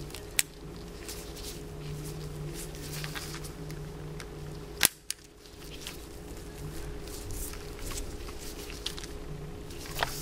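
Short sharp clicks and light handling noise as a spring-bar pin of a Casio G-Shock band is worked into the watch's lug with a small flat screwdriver: one click about half a second in and a louder one about halfway through, over a steady low hum.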